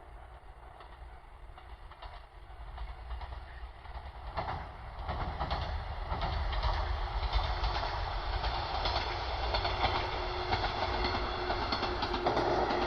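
A train approaching and passing close by, its wheels clicking over the rail joints in a steady rhythm that grows louder from about four seconds in, over a rising rumble.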